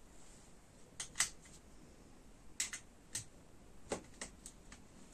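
Small batteries clicking and tapping against the battery contacts and plastic case of an opened Aiwa PX477 cassette Walkman as they are fitted by hand: about seven short sharp clicks, the loudest about a second in.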